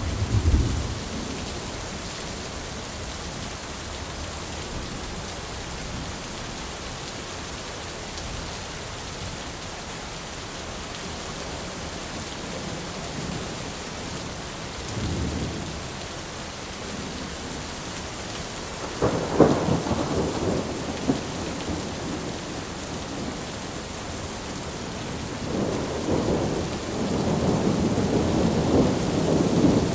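Thunderstorm: steady rain with rolling thunder. A low rumble at the start and a fainter one around the middle, a louder, sharper peal about two-thirds through, and a long rumble building near the end.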